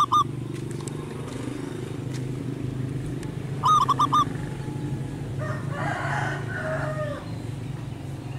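Zebra dove cooing: a quick burst of four short notes about four seconds in, with the tail of another burst at the very start. A longer, rougher call from another animal sounds around six seconds in, over a steady low hum.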